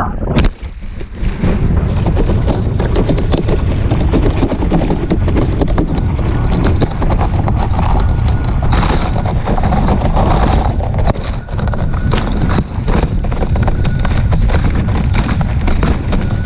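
Wind blasting the microphone of a board-mounted action camera as a kiteboard planes over choppy water, with a steady rush of water and frequent knocks as the board slaps the chop; a sharp knock about half a second in.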